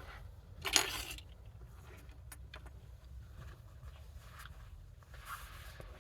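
Small plastic and metal parts of a disassembled car window switch being handled on a bench: a short rattle about a second in, a few light clicks, and a softer rustle near the end.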